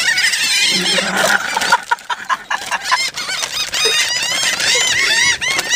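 A flock of gulls calling loudly, many short arched calls overlapping one another without a break.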